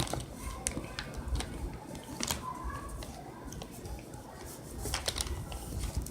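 Slime being squished and pulled apart by hand, with irregular sticky clicks and pops over low handling rumble.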